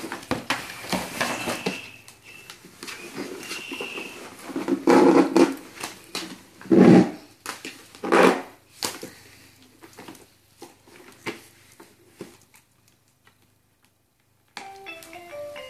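Cardboard packaging and plastic ties being torn and pulled off a toy, with crackling and several loud rips in the first half that thin out to occasional clicks. About a second before the end, the electronic baby toy starts playing a short tune of stepping notes as its buttons are pressed.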